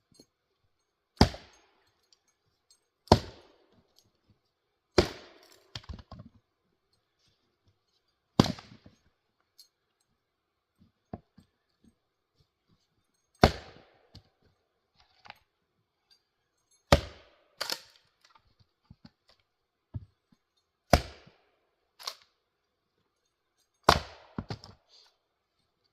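A 3½-pound Velvicut Jersey-pattern axe splitting firewood: about nine sharp, cracking blows into the wood, spaced irregularly a few seconds apart, some followed by lighter knocks.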